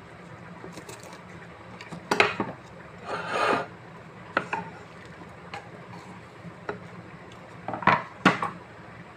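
Kitchen knife working vegetables on a wooden cutting board: scattered sharp knocks of the blade and board, a scrape of about half a second a little past the three-second mark as pieces are pushed across the board, and a loud cluster of knocks near the end. A low steady hum sits underneath.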